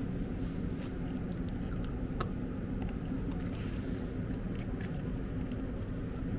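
Packaging being handled: a few small sharp clicks and brief faint rustles over a steady low rumble.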